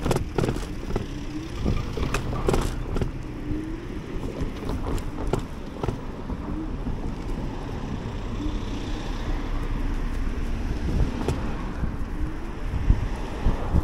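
Ride noise from a Teverun Blade GT II electric scooter underway: steady wind and road rumble, with repeated sharp knocks and rattles over bumps.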